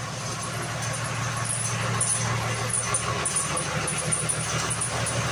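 Toyota Land Cruiser HJ61's 12H-T straight-six turbo diesel idling steadily, an even low engine note, shortly after its first start in about three months.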